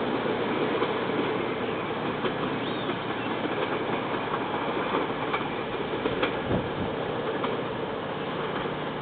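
Class 421 '3-COP' slam-door electric multiple unit running along the track. Its wheels click now and then over rail joints, and the rumble slowly gets quieter.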